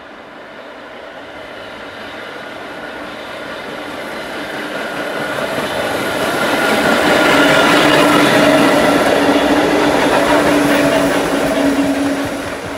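Vintage subway train running through the station on open track: the rumble of its wheels and running gear grows louder as it approaches, then holds at a peak with a steady low whine as the cars pass close by.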